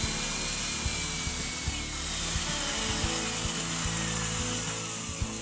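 Power drill driving a bi-metal hole saw into a wooden door: a steady cutting hiss, with a thin whine sliding slowly down in pitch.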